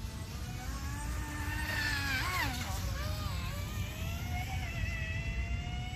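Small electric RC speedboat, an MHZ Micro Iceberg on a 4S battery, whining as it runs out on the water. The pitch rises and dips with the throttle, with a quick swoop about two seconds in, over a steady low rumble.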